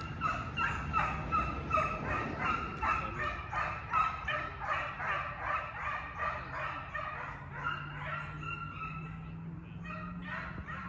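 A pack of Walker foxhounds in full cry, many voices baying in a fast overlapping chop of about four calls a second: the sound of hounds running hot on a fox. The chop thins out after about eight seconds and picks up again near the end.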